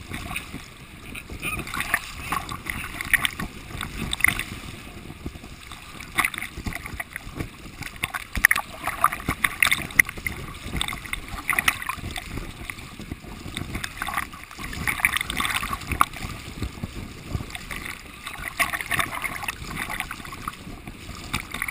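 Fast, shallow river water rushing and splashing over a rock slab right at the microphone, with constant gurgling and spattering as water washes over the camera.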